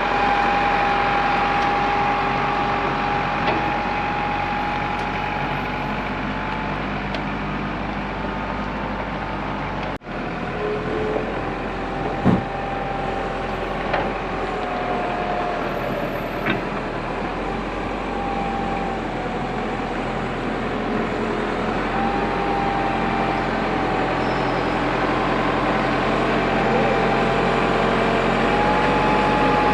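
Heavy diesel engine running steadily, with a whine that shifts slightly in pitch. There is a sudden break about a third of the way through, and a few sharp knocks, the loudest just after the break.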